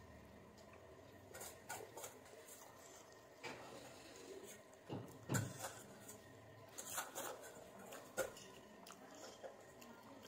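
Close-up chewing and wet mouth sounds of someone eating boiled egg and Maggi instant noodles, with scattered soft smacks and clicks; the loudest comes about five seconds in.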